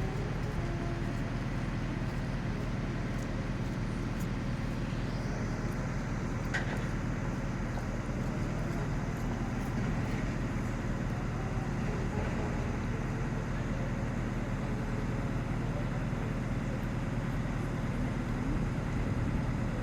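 A heavy engine running steadily with a low hum, over the steady noise of a city street.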